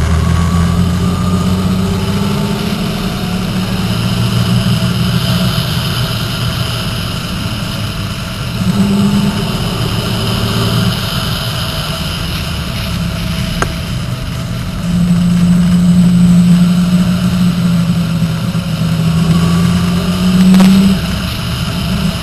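Motorcycle engine running under way through a series of curves, its pitch stepping up and down with the throttle, over steady wind and road noise.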